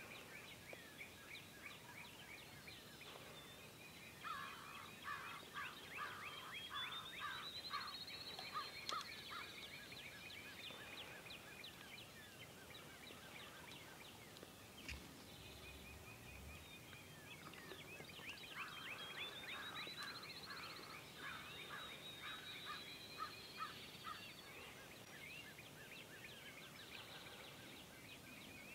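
Wild turkeys gobbling faintly in the distance, two bouts of rattling calls about fourteen seconds apart, with faint chirps from other birds between them.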